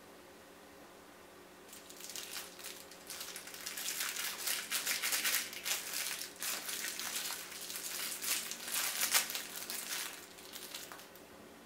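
Thin clear plastic wrapper crinkling as a mochi squishy toy is pulled out of it by hand. It starts about two seconds in, goes on in irregular crackles and dies away near the end.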